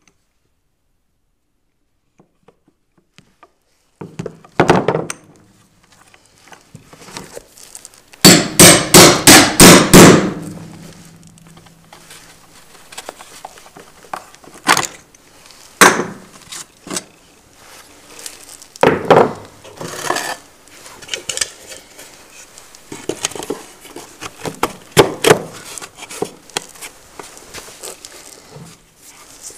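Hammer striking a corner chisel to square the corner of a router-cut vent opening in a hardwood floor. After a few seconds of silence comes a single blow, then a fast run of about six loud strikes, then scattered single blows and lighter knocks.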